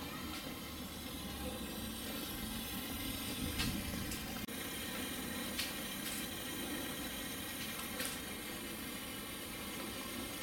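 Steady, even hiss of background noise, with a few faint sharp ticks.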